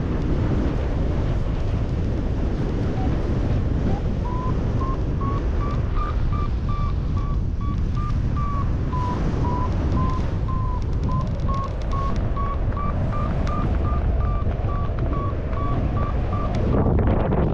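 Strong wind noise on the microphone of a paraglider in flight. From about four seconds in, a variometer beeps a few times a second, its pitch stepping up and down, the beeping that signals a climb in a thermal.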